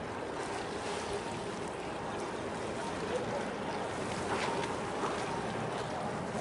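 Steady wind and choppy harbour water noise, with a faint steady hum underneath and a brief faint sound about four seconds in.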